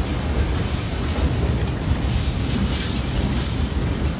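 First Coast Railroad freight train's boxcars rolling past: a steady low rumble, with brighter clatter from about one and a half to three and a half seconds in.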